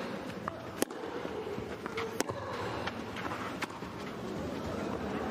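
Tennis ball struck back and forth by rackets in a rally: three sharp strikes about a second and a half apart, with fainter ticks between, over a steady arena hum.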